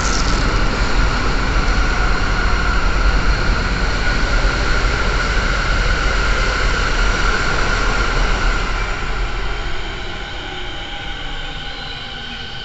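Electric commuter train running in along the platform, a loud steady rumble with a high whine over it that eases off about three-quarters of the way through as the train slows.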